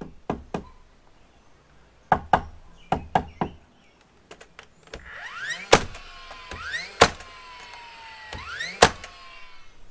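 Cordless 16-gauge finish nailer firing three times: each shot a rising motor whine that ends in a loud, sharp crack as the nail drives. A few knocks come before the shots.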